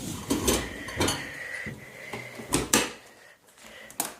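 Dishwasher rack and dishes being handled: a series of sharp clatters and knocks, with a pair of louder knocks about two and a half seconds in.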